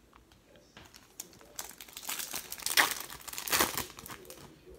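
Baseball card pack wrapper crinkling as it is worked open by hand. The crackling builds about a third of the way in and peaks twice before trailing off near the end.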